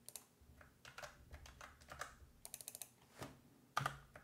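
Computer keyboard keys clicking faintly in scattered keystrokes, with a quick run of several about two and a half seconds in.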